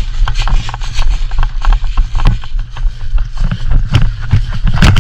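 A player running with a body-worn camera: irregular footfalls and gear jostling, with heavy buffeting and rubbing on the microphone.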